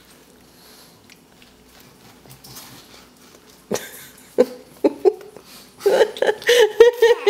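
Toddler biting and chewing a raw apple, faint at first, then breaking into giggles about four seconds in: short bursts of laughter that get louder and come thick and fast near the end.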